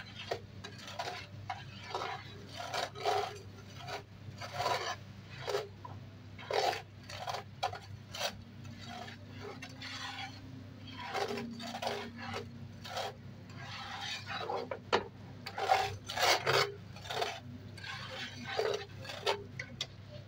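Slotted metal spatula scraping and stirring wet, bubbling sugar across the bottom of a nonstick frying pan, in repeated irregular strokes about once or twice a second, over a steady low hum. The sugar and water are being cooked down into a sugar coating.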